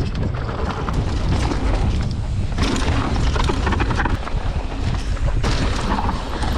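Wind buffeting an action camera's microphone during a mountain-bike descent: a heavy, steady low rumble, with scattered knocks and rattles from the bike over rough ground.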